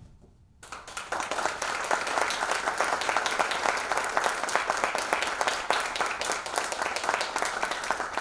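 Applause: a group of people clapping steadily, starting after a brief hush about half a second in.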